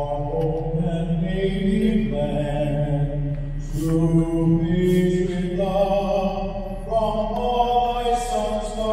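A solo voice singing the national anthem unaccompanied in an ice hockey arena, in long held notes.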